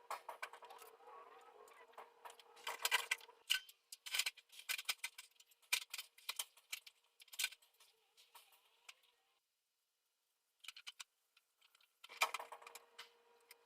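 Irregular sharp clicks and rattles of small hard objects being handled, over a steady low hum. The hum drops out about nine seconds in and comes back near the end.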